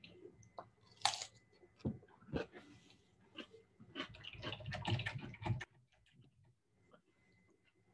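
Irregular clicks, knocks and rustling close to a laptop microphone, busiest in a run that stops a little over two-thirds of the way through, over a faint steady high tone.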